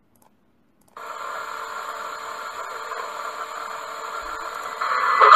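A steady hiss of background noise that starts suddenly about a second in and grows louder near the end.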